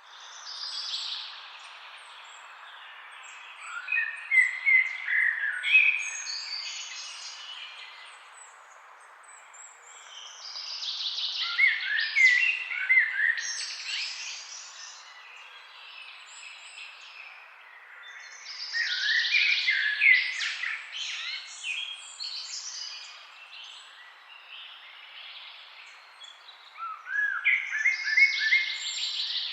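A songbird singing bursts of quick rising and falling notes, about one every eight seconds, over the steady rush of a flowing forest river.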